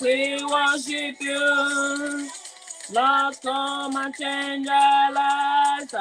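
A song with a solo voice singing long held notes, each sliding up into pitch, with a short pause about halfway through.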